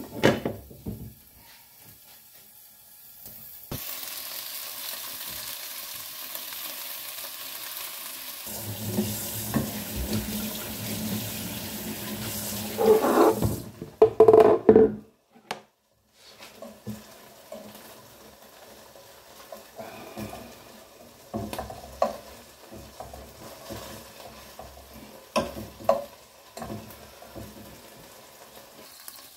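Chicken wings sizzling in oil in a granite-coated frying pan, a steady hiss. A metal lid clatters onto the pan at the start and clanks loudly as it is lifted off about halfway through; afterwards the hiss goes on with scattered clicks of a fork turning the wings.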